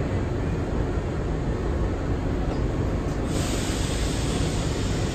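R62 subway car in motion: a steady rumble of wheels on rail, with a brighter hiss setting in suddenly a little over three seconds in.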